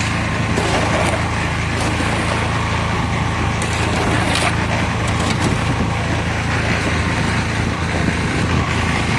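One-bag cement mixer running steadily, a constant low engine hum with a few faint knocks over it.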